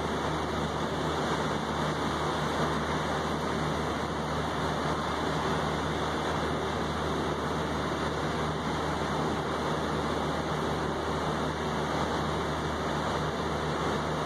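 Steady rain falling on a wet balcony table and railing, blended with the even rush of ocean surf into one unbroken hiss.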